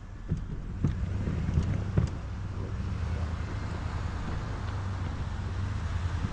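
Engine of a snow-clearing vehicle running steadily, with a few sharp knocks in the first two seconds.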